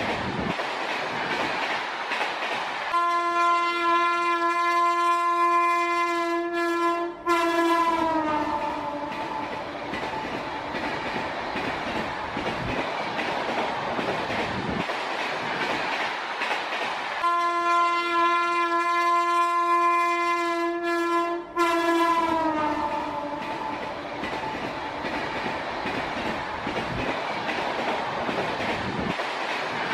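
A train rolls past with a steady rumble and rail noise. Its horn sounds twice, each a long blast of about four seconds that slides down in pitch as it ends.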